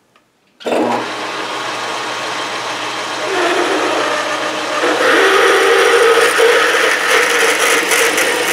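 Metal lathe switched on about half a second in and running steadily. From about three seconds in, a 7/16-inch twist drill cuts into the spinning metal bar, and the sound grows louder with a steady whine.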